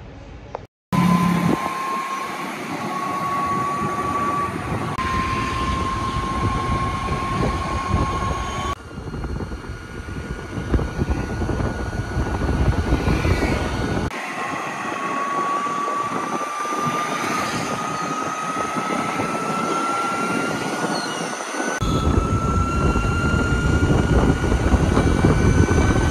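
Electric scooter on the move: the motor's thin whine rises slowly in pitch as it gathers speed, over steady wind and road noise. The sound changes abruptly several times where short clips are joined.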